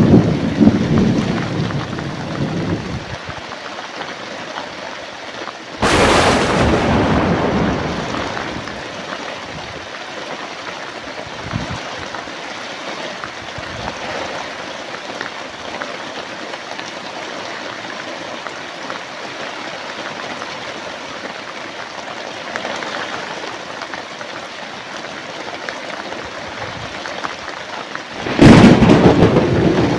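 Steady heavy rain with thunder. A low rumble dies away about three seconds in, and a sharp thunderclap about six seconds in fades over a couple of seconds. Another loud rumbling peal breaks out near the end.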